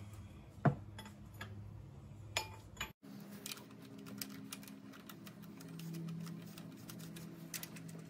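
Scattered light metallic clicks and clinks of a cam phaser and timing chain being handled and fitted onto the camshafts of an Ecotec 2.4 L engine, with one sharper click about a second in. The sound drops out briefly about three seconds in, after which a faint steady hum sits under further small ticks.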